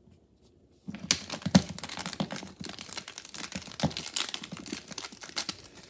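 Plastic action figures clacking and scraping together as hands mash them in a mock fight: a rapid, irregular run of clicks and rustles that starts about a second in and stops near the end.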